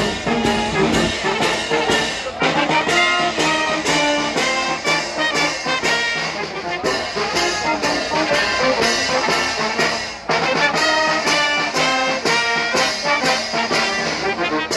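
Wind band of saxophones, baritone horns and trombones playing, with bass drum and cymbals keeping a steady beat of about two strokes a second. The music breaks off briefly about ten seconds in, then starts again.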